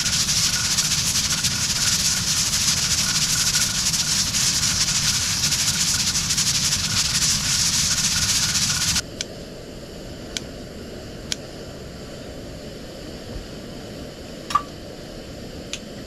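Loud, steady cooking hiss at the campsite that cuts off abruptly about nine seconds in. A quieter background follows, with a few sharp clicks.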